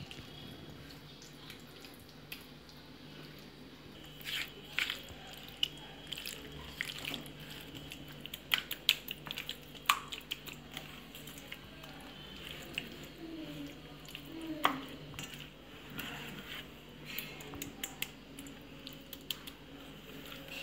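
Bare hand kneading and rubbing thick, wet masala paste into chicken pieces in a steel bowl: soft irregular squelches and small sticky clicks. It is faint for the first few seconds, then busier.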